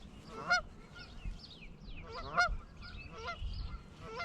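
A goose honking repeatedly, a short call every second or so, with small birds chirping high and fast in between.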